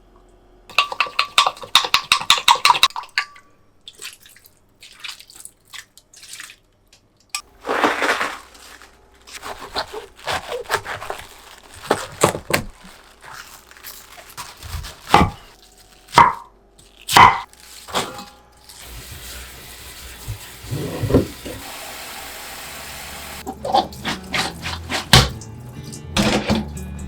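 Kitchen sink work: a quick rattle near the start, then scattered knocks and clinks of items being handled. From about two-thirds of the way in, a tap runs steadily.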